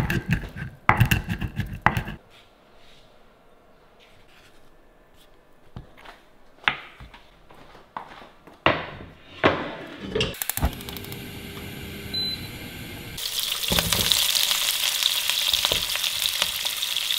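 Kitchen knocks and clatter from utensils and cookware, then, about thirteen seconds in, oil in a pan starts sizzling steadily as food fries.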